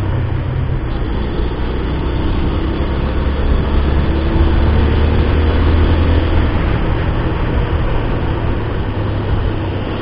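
Bajaj Pulsar 150 motorcycle running steadily at cruising speed, its single-cylinder engine mixed with wind rush on the rider's microphone. It swells slightly about halfway through.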